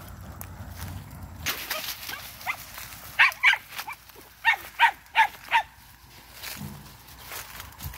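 Vietnamese hunting dog giving short, sharp, high-pitched barks, about six of them in two quick groups, as it hunts through the undergrowth. Before the barks there is a brief rustle of brush.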